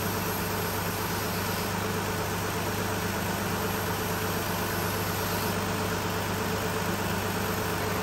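Engine bay of a 2016 Lexus RX350 with its 3.5-litre V6 idling steadily and the air conditioning running at full, a constant hum under a steady rush, while the running AC system draws refrigerant in through the low-side port.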